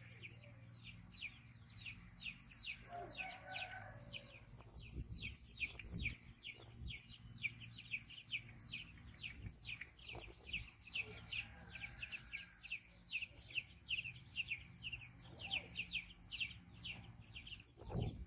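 A bird chirping without pause: a steady run of short, falling chirps, about three or four a second.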